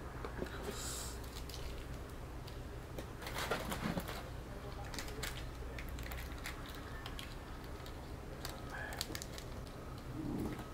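A man eating noodles: chewing and mouth sounds with many small scattered clicks and crackles, and a louder rustling burst about three and a half seconds in.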